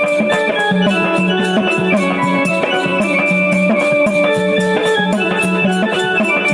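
Music: sustained melodic lines over a fast, steady percussion beat.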